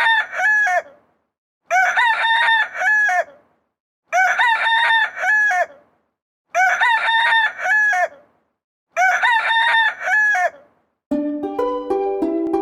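Rooster crowing five times at even intervals, the same crow repeated each time. Light plucked-string music starts near the end.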